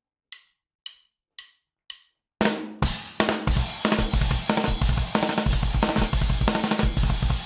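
Four evenly spaced count-in clicks about half a second apart, then an acoustic drum kit comes in hard with a crash about two and a half seconds in: a fast drum solo with rapid double bass drum kicks under snare, toms and cymbals.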